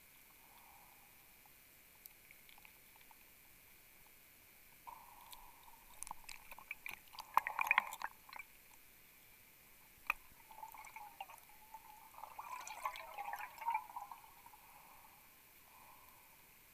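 Bubbling and gurgling underwater around a diver on a closed-circuit rebreather, in two stretches of a few seconds each around the middle, with scattered clicks and knocks.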